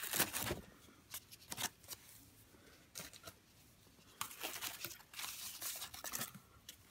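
Wrapping paper and ribbon rustling and crinkling as a small wrapped present is handled and its ribbon untied: a short burst near the start, scattered light clicks, then a longer stretch of rustling in the second half.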